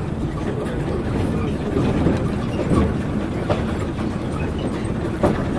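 Moscow Monorail train running along its elevated beam, heard from inside the car: a steady low rumble with a few sharp knocks, the loudest near the end.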